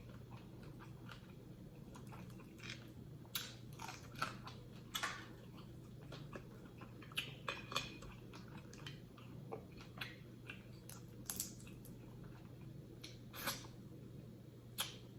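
Close-miked eating of sauce-covered blue crab: chewing with irregular sharp crunches and clicks as the shell and meat are bitten.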